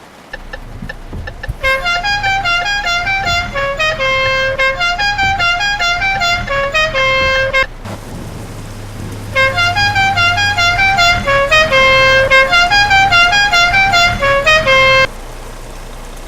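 A newly fitted musical horn playing a tune in stepped notes, repeated twice with a short pause between, over a low steady hum. A few clicks come just before the tune starts.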